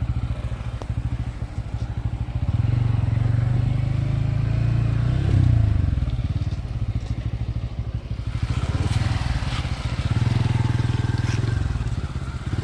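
Motorcycle engine running at low speed, its note swelling and easing, as the bike rolls over rough stony ground at a railway level crossing.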